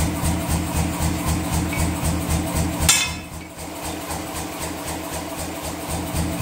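A shop machine running with a steady, rapid pulse of about five beats a second. About three seconds in there is a single sharp metallic clang, after which the pulsing is quieter for a couple of seconds.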